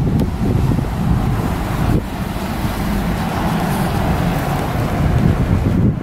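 Wind buffeting the camera's microphone: a continuous, uneven low rumble.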